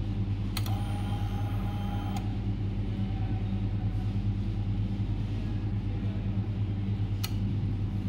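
Jawa 42 Bobber switched to ignition-on with the engine not running: a short whir starts with a click about half a second in and stops about a second and a half later, typical of the fuel pump priming. A steady low hum runs underneath, and there is a faint click near the end.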